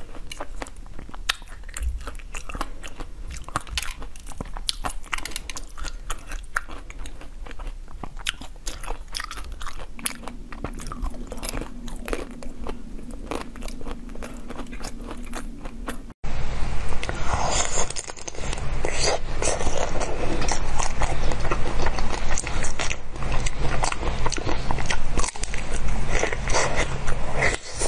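Close-miked biting and crunching of chocolate-coated frozen grapes, a dense run of sharp crisp cracks. About 16 s in it cuts to louder, wetter chewing and biting of a pink frozen treat.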